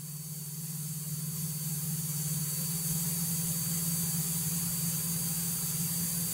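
Light aircraft in cruise: a steady engine and propeller drone with airflow hiss, growing louder over the first three seconds and then holding level.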